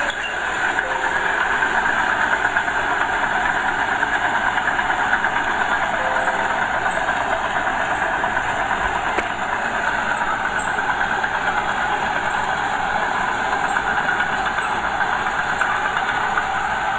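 Small Komatsu bulldozer's diesel engine running steadily under load with a continuous mechanical rattle as it pushes soil.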